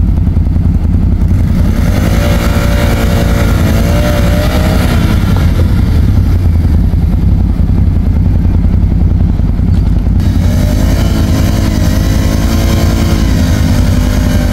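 ATV engine running under throttle, its pitch wavering up and down over a steady low rumble.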